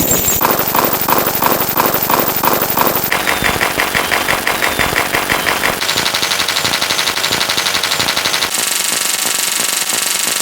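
Synthetic electronic beeps firing in a rapid machine-gun-like stream, the sonified counting of a binary counter. Their pitch steps up by about an octave every two to three seconds, four times in all, ending in a high shrill chatter.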